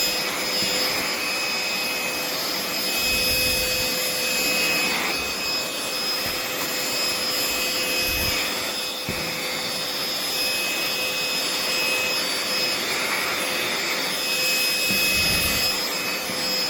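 Aspiron ASCA038 cordless handheld vacuum running at a steady speed: the motor and fan give a steady whine over the rush of air.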